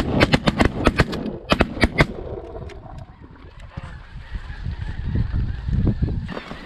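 A rapid volley of shotgun blasts from several hunters firing at once, about a dozen shots in the first two seconds, over the calling of a snow goose flock. After the shooting the geese keep honking more faintly.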